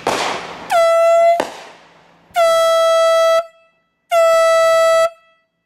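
Handheld air horn giving three blasts of one steady pitch, the first short and the next two about a second each, after a brief burst of hissing noise. The blasts are a warning just before the gas-filled balloon is detonated.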